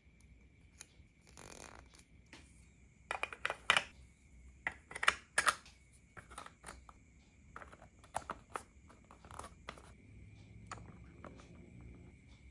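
Hard plastic pieces of a collectible toy capsule clicking and tapping as they are handled and fitted together, a run of sharp clicks with the loudest about three to five and a half seconds in. A faint steady high-pitched whine runs underneath.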